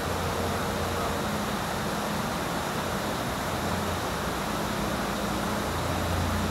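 Steady rushing of a mountain waterfall and stream, an even, unbroken noise.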